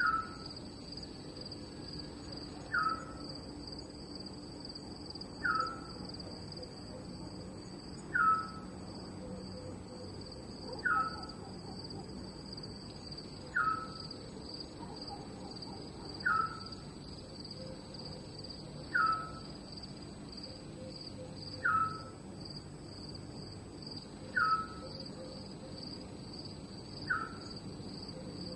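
Night ambience of crickets chirring in a steady, fast-pulsing high trill. Over it, a night animal gives a short falling call that repeats evenly about every two and a half to three seconds.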